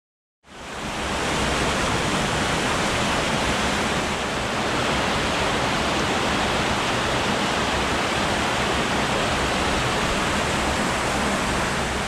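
Small waterfall in a steep mountain stream, water rushing steadily over rocks into a pool; it comes in about half a second in, after a silent start.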